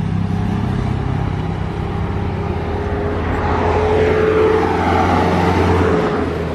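Motor vehicle engine noise: a steady low engine hum, with a vehicle passing close by that swells to a peak about four seconds in and then eases off.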